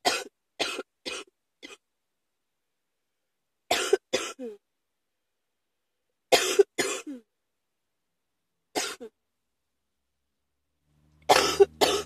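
A person coughing in fits: a run of four quick coughs, then pairs of coughs every two to three seconds.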